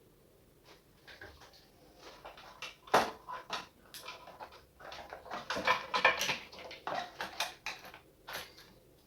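Irregular clicks, taps and scrapes of small parts being handled on a drone remote controller, a loud click about three seconds in and a dense run of rattling clicks from about five seconds in.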